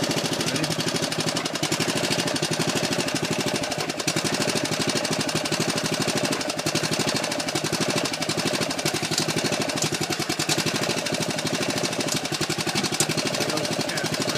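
Small engine on a hydraulic pump unit running steadily with a fast, even firing rhythm. It drives the hydraulic cylinders pressing against the foundation piers to lift a settled wall.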